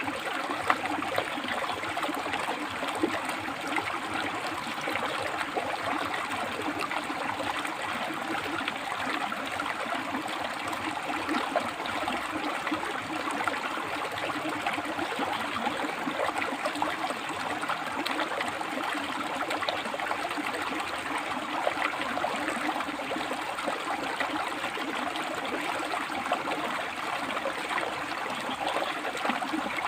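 River water flowing and splashing over and between rocks: a steady, continuous rushing and babbling.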